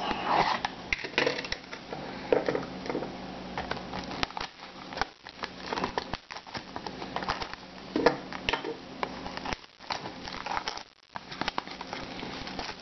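Cellophane shrink wrap on a sealed trading-card box crinkling and crackling as fingers pick at it and tear it open, with irregular crackles and small taps on the box.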